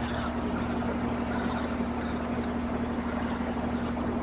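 Air conditioning equipment running with a steady mechanical hum that carries a strong, even low tone, with a few faint light clicks over it.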